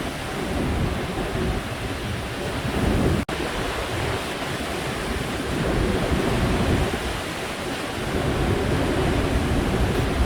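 Rough sea surf churning and crashing during a typhoon, with strong wind buffeting the microphone. The sound cuts out for a split second about three seconds in.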